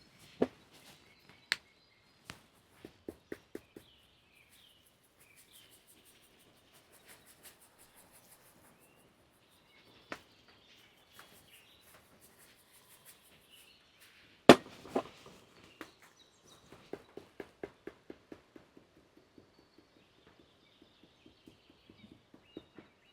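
Irregular knocks and taps, some coming in quick runs of several strokes, with one much louder sharp knock about halfway through. Faint bird chirps can be heard in the background.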